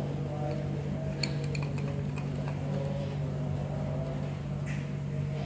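Light metallic clicks from an adjustable wrench working the terminal nuts on a Toyota Great Corolla distributor, clustered between about one and three seconds in, over a steady low hum.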